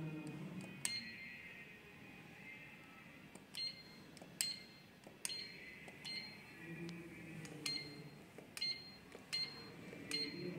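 Automated visual field analyzer (perimeter) running a visual field test: about ten sharp clicks at irregular intervals of roughly a second, each followed by a brief high ring.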